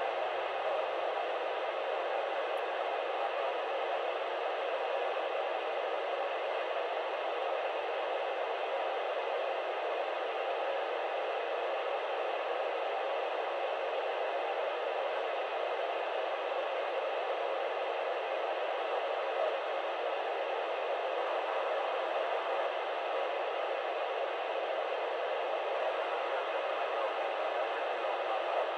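Steady FM static hiss from a ham radio transceiver's speaker with the squelch open. It is tuned to the ISS repeater's 437.800 MHz downlink, and no signal is coming through.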